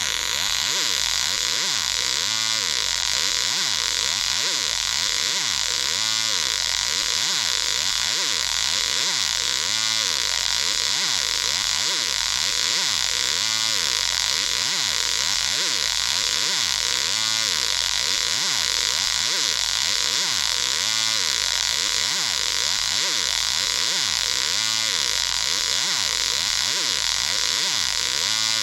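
Loud, steady electronic hiss run through a voice-changer app's Halloween effect, with a flanging sweep that comes round about every three to four seconds.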